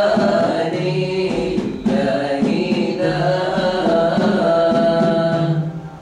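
Men singing an Arabic nasheed in unison, accompanied by a hand-held frame drum (daf). The song stops about five and a half seconds in.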